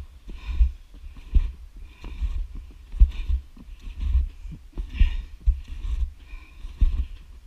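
Footsteps on snowshoes over crusted snow, picked up through a head-mounted camera: a steady walking rhythm of dull thuds, about one a second, each with a crunch.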